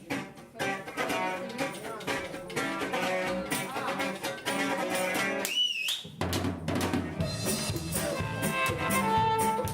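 Live band music: a busy pitched melody for the first five seconds or so, a brief break with a high gliding note, then the full band with bass and drums coming in about six seconds in.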